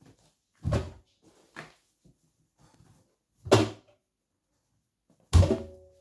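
Laundry tumbling in the drum of a Hoover front-loading washing machine at the start of a prewash: the load is lifted and drops with a loud thud and swish three times, about every two seconds, with one softer drop between the first two.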